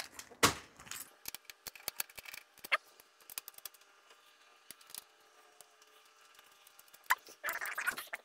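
Scattered light clicks and small metal clinks of hand tools being handled inside a 3D printer's enclosure, the loudest about half a second in, over a faint steady hum. A short scuffing sound comes near the end.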